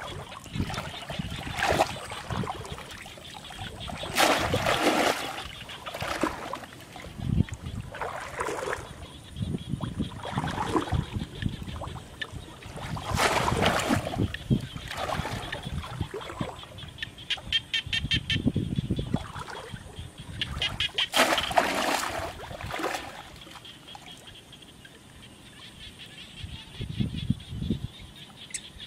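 Muddy pond water splashing and sloshing in irregular bursts, churned by someone wading waist-deep and groping along the bottom with their hands, with trickling between the splashes.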